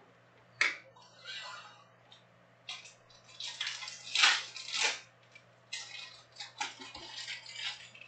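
Foil-wrapped 2020-21 Panini Prizm Premier League card packs crinkling and rustling in irregular bursts as they are handled and restacked on the table.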